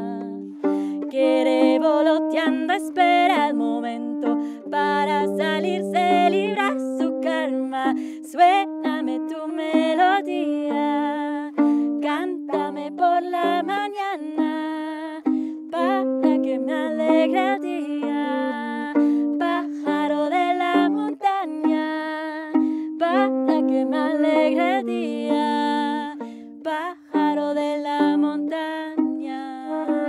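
Instrumental break: a saxophone plays a melody over a strummed ukulele.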